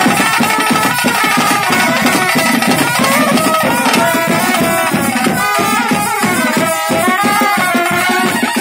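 Bhuta kola ritual music: fast drumming under a wavering, high melody line, played loud.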